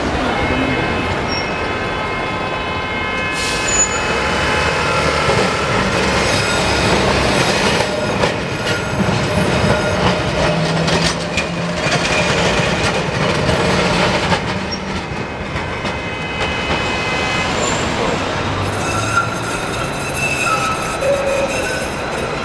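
Tram running on curved street track, its steel wheels giving a steady high squeal, with a run of rapid clacks over rail joints and switches as a 1928 Peter Witt-type tram passes close by.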